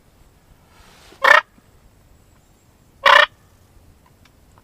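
Turkey purr made by a hunter on a mouth diaphragm call: two short calls about two seconds apart.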